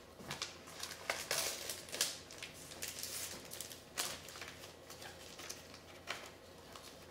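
Paper record sleeve and cardboard album jacket being handled: irregular rustling and sliding with sharp little clicks and taps, busiest in the first four seconds, then dying down.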